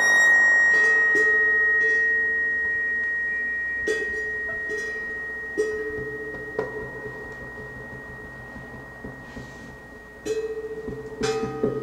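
Live experimental music. A single high ringing tone starts suddenly and fades slowly over about ten seconds, over softer lower notes that are struck or plucked every second or two. The lower notes grow busier near the end.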